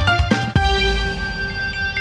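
Short instrumental jingle: a few quick plucked notes, then a strong hit about half a second in that rings on as a held chord.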